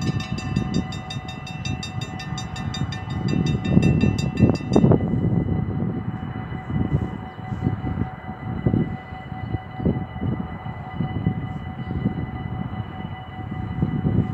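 Level-crossing warning bells ringing rapidly and evenly while the barriers lower, then stopping abruptly about five seconds in as the barriers settle fully down. A loud, uneven low rumble runs underneath throughout.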